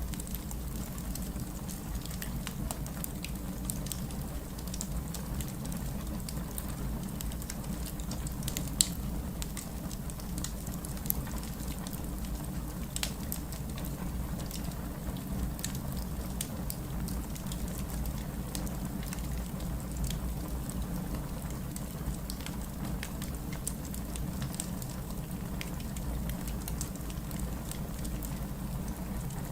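Fireplace ambience: a steady low rumble of burning logs with scattered sharp crackles and pops, one louder pop about nine seconds in.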